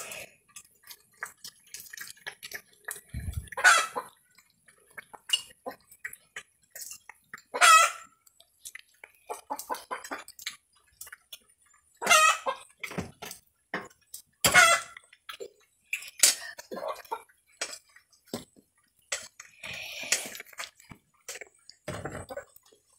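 Dogs eating from metal bowls: scattered short clinks and knocks of the bowls, with a chicken clucking now and then.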